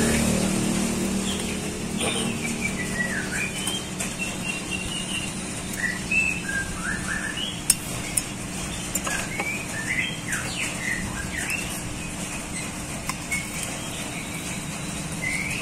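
Small birds chirping over and over in short rising and falling notes, over a steady low hum. A few sharp clicks, the loudest a little before the middle.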